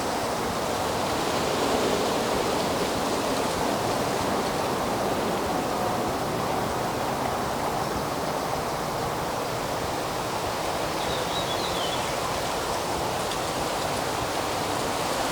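Steady, even rushing outdoor ambience, with a brief faint high chirp about eleven seconds in.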